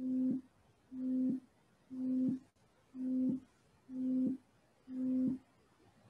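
Modular synthesizer sounding the same pitched note six times, about once a second, each note swelling in and then cutting off after about half a second. It is an oscillator shaped by the envelope generator, set to a longer attack on the gate.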